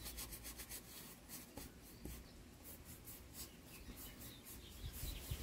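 Flat paintbrush scrubbing acrylic paint onto a canvas: a quick, irregular run of short, faint scratchy strokes.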